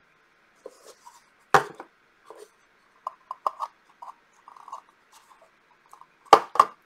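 Hard plastic clicks and knocks of a Portable Painter Classic travel watercolor palette being handled as its black water cups are fitted onto its sides: a sharp knock about a second and a half in, scattered light clicks, then two loud clicks in quick succession near the end.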